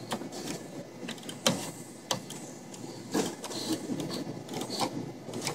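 Claw machine mechanism working: the gantry motors run as the claw moves, with irregular clicks and knocks from the claw and its carriage.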